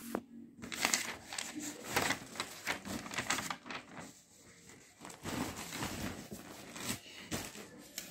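A sheet of paper rustling and crinkling on and off as it is moved about and laid down flat.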